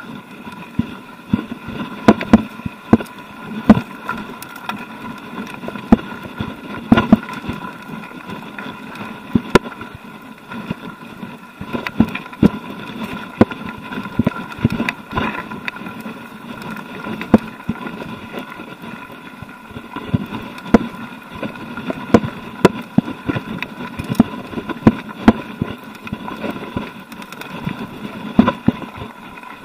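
Mountain bike ridden over rocky, stony singletrack: tyres rumbling on loose gravel and stones, with frequent sharp knocks and rattles from the bike over the bumps. A steady high buzz runs underneath.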